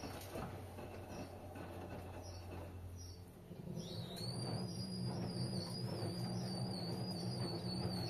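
AEG Öko-Lavamat front-loading washing machine in its wash cycle, the drum motor running with a low hum. About three seconds in the motor pauses briefly, then starts the drum again with a rising high whine that settles into a steady one.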